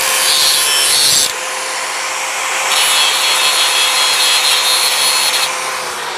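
Angle grinder running with a steady motor whine, its disc grinding the end of a bar of car spring steel in two passes: for the first second, then again from about three seconds to five and a half. Near the end the disc comes off the metal and only the motor whine is left.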